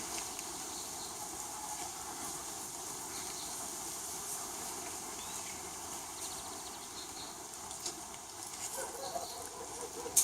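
Steady background hiss of the practice space with a few faint bird chirps, and a few soft clicks near the end.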